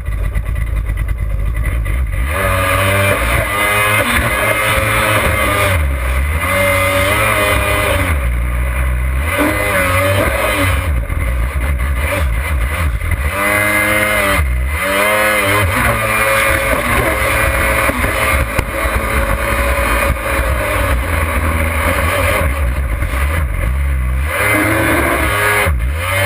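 Yamaha Superjet stand-up jet ski's two-stroke engine revving up and down again and again as the craft is thrown through turns, with rushing water and spray on the hood-mounted camera.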